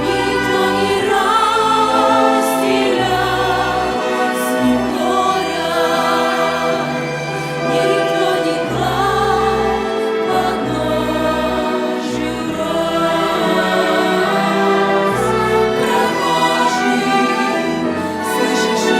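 Church vocal ensemble singing a hymn in harmony with vibrato, over instrumental accompaniment with a sustained bass line.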